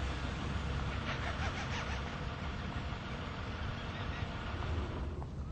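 Car engine idling steadily, with a few faint clicks about a second in.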